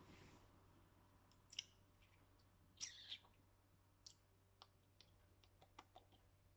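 Near silence with a few faint, scattered clicks, one slightly fuller about three seconds in.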